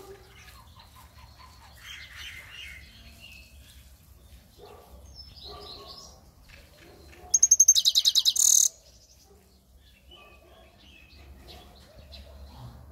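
A small songbird held in a man's fist, singing: scattered soft chirps, then a little past the middle a loud, fast run of about a dozen sharp high notes lasting about a second and a half.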